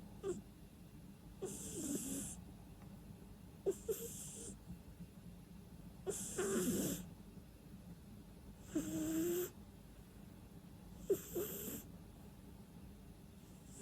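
Sleeping cat snoring and breathing noisily through its nose, about five breaths spaced roughly two and a half seconds apart. Each breath is a hissy rush of air; some start with a short snort-like click and some carry a pitched snore.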